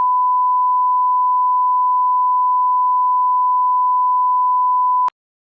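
Steady 1 kHz sine test tone, the signal that accompanies a TV test card, stopping abruptly about five seconds in.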